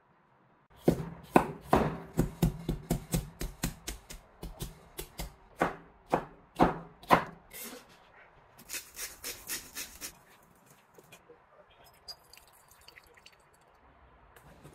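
Cleaver smashing and chopping cucumber on a wooden cutting board: a run of sharp knocks, about three a second, then a quicker, brighter flurry of chops around nine seconds in, and faint clicks after.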